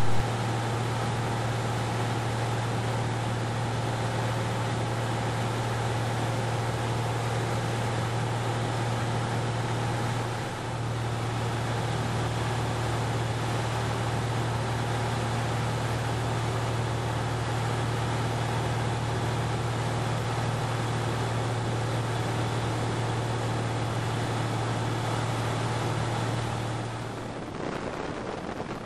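1961 Cessna 172B's Continental O-300 six-cylinder engine and propeller droning steadily in flight, heard inside the cabin, with a strong low hum. Near the end the drone drops away, leaving a quieter rushing noise.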